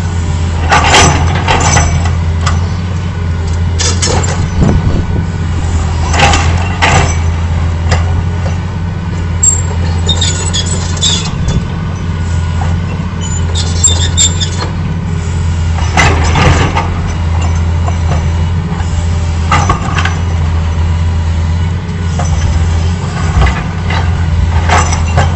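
Excavator's diesel engine running steadily while its bucket breaks into a masonry wall, with crunching crashes of falling rubble every few seconds and a few high scraping bursts.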